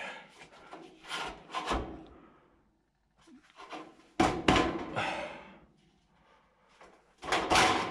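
Scraping and rubbing of drywall framing materials being handled and shifted into place. It comes in a few separate bursts with quiet gaps between, and a louder burst near the end.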